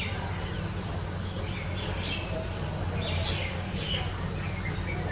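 Small birds chirping in short scattered calls over a steady low hum.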